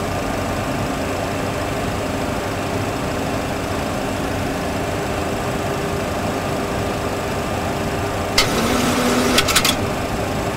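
Steady simulated engine and airflow noise in a Boeing 737 full flight simulator cockpit, with faint steady hums. About eight seconds in, a brief rustle with a few clicks.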